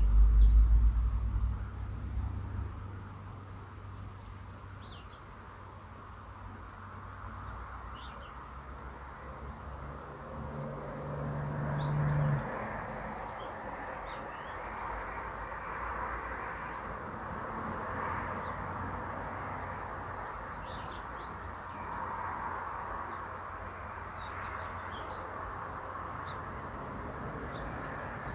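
Daurian redstart giving short, high calls at irregular intervals, every second to few seconds, over a steady background hiss. A loud low rumble fills the first two seconds, and a low hum swells about ten seconds in and stops suddenly a couple of seconds later.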